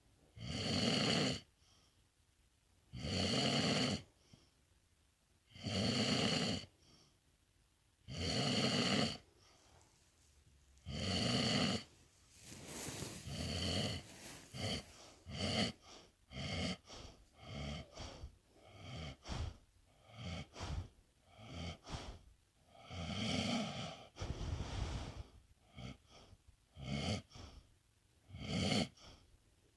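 A sleeping pet snoring: five long, even snores about every two and a half seconds, then, about twelve seconds in, the breathing turns quicker and irregular, a run of short snorts and breaths.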